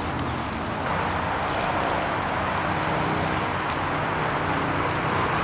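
Hoofbeats of a ridden horse on a dirt arena, irregular clip-clops over a steady hiss.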